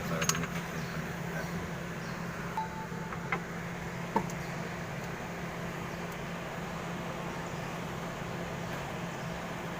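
A steady low mechanical hum with a few light, sharp metallic clinks.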